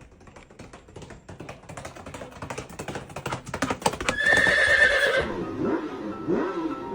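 A quick run of clicks or taps for about four seconds, then an animal's high-pitched call held for about a second, followed by a few short calls that rise and fall.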